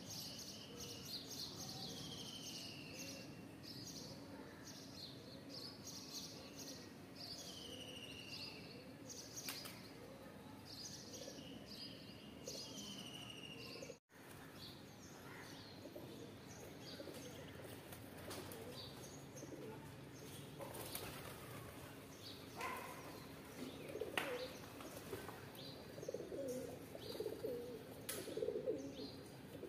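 Rock pigeons feeding, with faint cooing and wing flaps, strongest near the end, while small birds chirp with short falling calls in the first half. The sound drops out for a moment about halfway.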